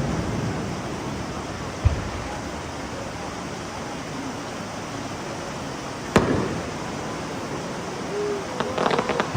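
Fireworks shells bursting: a dull low boom about two seconds in and a sharp bang about six seconds in that rings out and fades, over a steady wash of outdoor crowd noise.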